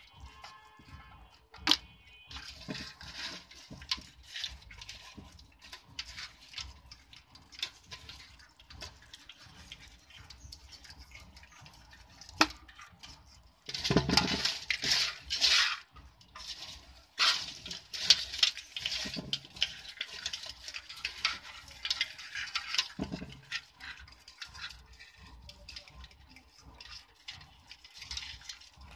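A hand stirring live crabs in a plastic bucket of shallow water: splashing and sloshing, with many small clicks and scratches of crab shells and legs against each other and the bucket. The splashing is loudest about halfway through.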